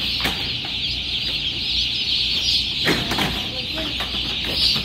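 A dense, unbroken chorus of high-pitched peeping from thousands of newly placed broiler chicks. A knock sounds about three seconds in.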